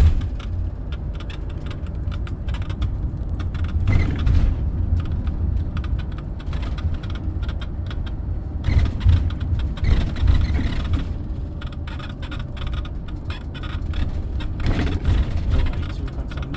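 Carthago motorhome on the move: a steady road and engine rumble, with bouts of squeaking, creaking and rattling from the vehicle a few seconds in, around the middle and near the end.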